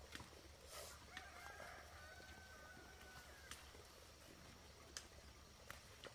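Faint rooster crow: one long held call lasting about two seconds, starting about a second in, among a few scattered light clicks.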